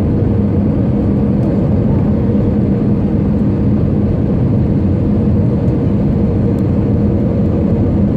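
Steady jet engine and airflow noise inside an Airbus A320 cabin during the landing approach, with a constant low drone under the rush of air.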